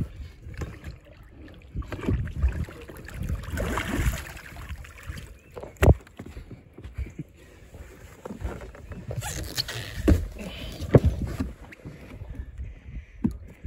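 Water splashing and sharp knocks against the boat as a paddlefish is hauled out of the water by hand and onto the deck, over a steady low rumble. The loudest knocks come about six seconds in and twice more around ten to eleven seconds.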